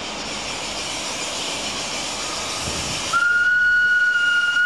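Narrow-gauge locomotive's whistle blowing one steady high note about three seconds in, held for about a second and a half over the steady running noise of the moving train.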